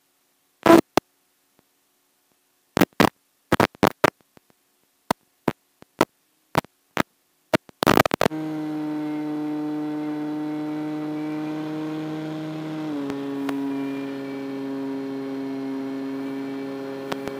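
A run of sharp, irregular clicks, then from about eight seconds in the steady hum of the RC wing's electric motor and propeller. The hum steps slightly lower in pitch about 13 seconds in as the throttle is eased back.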